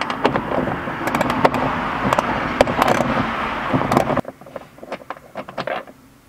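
A power driver with a 10 mm socket running, backing a bolt out of the vehicle's roof trim, with clicking and rattling throughout; it stops abruptly about four seconds in, followed by a few light clicks.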